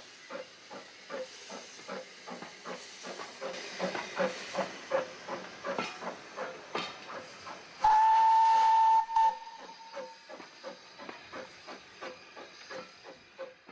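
Steam locomotive working, its exhaust beats coming at about four a second, with one steam whistle blast of about a second and a half about eight seconds in, the loudest sound. The beats grow fainter near the end.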